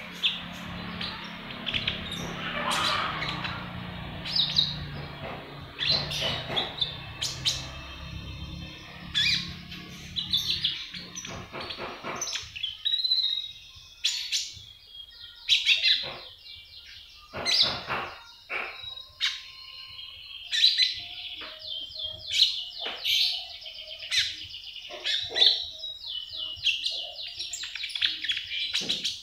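A young caged konin songbird calling in short chirps and quick twittering trills, coming more thickly and steadily after about twelve seconds. A low steady hum sits under the first part and stops partway through.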